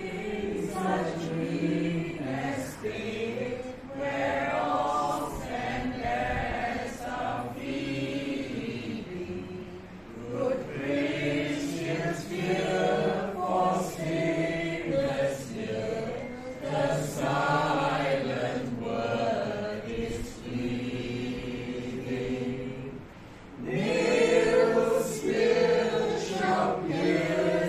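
A small group of people singing a song together. The singing breaks off briefly about ten seconds in and again near twenty-three seconds, then comes back in louder.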